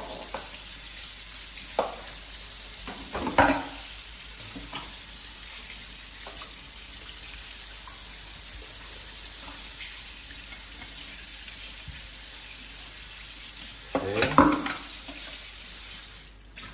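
Food sizzling steadily in a pan on the stove, with a few sharp knocks of cookware, loudest about three seconds in and in a quick cluster near the end. The sizzle cuts off shortly before the end.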